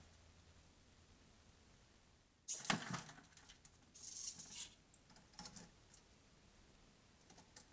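Sensor-triggered, motor-driven 3D-printed tilting-platform bucket trap tipping down with a sudden clatter about two and a half seconds in as a grey squirrel sets it off and leaps clear, then a higher rattling about a second and a half later as the platform swings back level, with a few faint clicks and scrabbles after.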